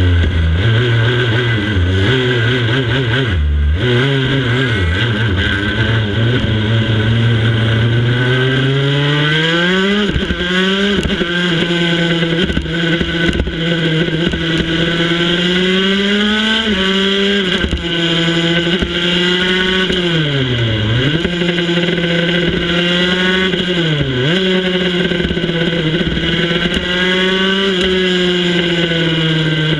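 Racing motorcycle engine heard from onboard: held at high revs and blipped on the start grid, then accelerating hard through the gears with quick shifts, and dropping sharply twice under braking for corners, over steady wind rush.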